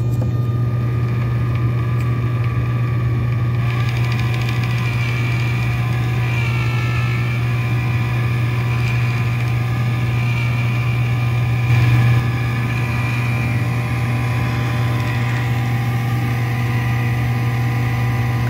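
Small geared electric motor running steadily, turning the whirligig's crank mechanism on a test run: a steady low hum with higher tones above it, briefly louder about twelve seconds in.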